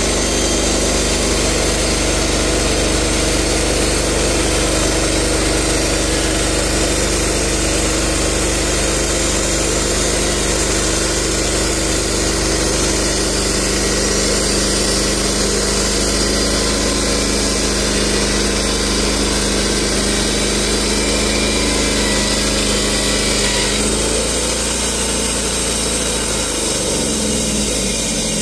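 Portable band sawmill running, its gasoline engine under steady load as the band blade saws through a tulip poplar log. About 24 seconds in the engine note changes, and near the end it drops away as the cut finishes.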